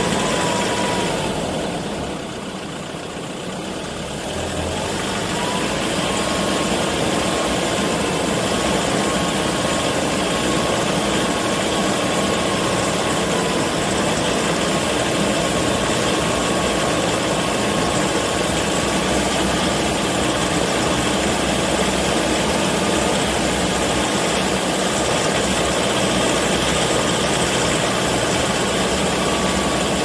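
Land Rover engine running as the vehicle drives slowly along a dirt track, under a steady rushing noise. It dips briefly about two seconds in.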